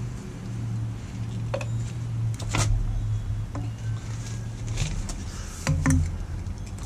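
A few sharp clicks and knocks of PVC pipe and fittings being handled, over a steady low hum.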